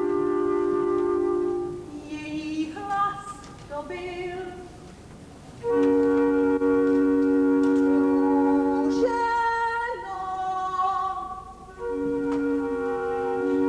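Music: loud held chords sounding for a few seconds at a time, broken twice by quieter, wavering melodic phrases before the chords return.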